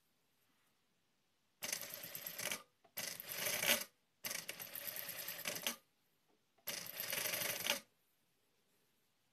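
Industrial sewing machine stitching bias binding onto a knit fabric edge in four short runs of about a second each, starting and stopping sharply with quiet between them.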